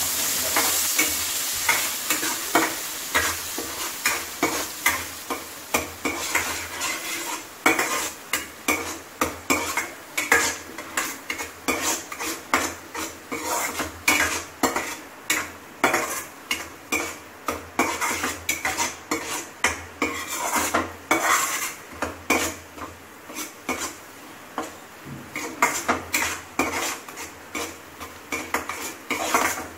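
Water-soaked spice masala frying in hot oil in a kadhai, sizzling, while a metal spoon stirs and scrapes the pan in short repeated strokes. The sizzle is loudest at the start and dies down, leaving mostly the scraping and clinking of the spoon.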